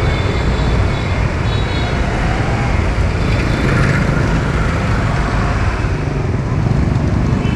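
Steady, loud noise of congested city street traffic, mostly motorbikes and scooters running.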